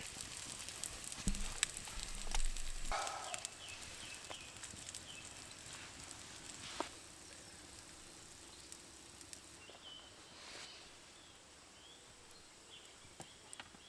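Bacon being warmed in a pan over a campfire: crackling and spitting, with a couple of knocks from the pan in the first few seconds. The crackling thins out later, and small birds chirp faintly in the second half.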